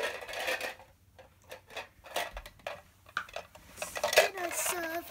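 Plastic toy cookware clattering as it is handled: a toy pot, its lid and small plastic utensils knocking together in a string of light clicks and knocks.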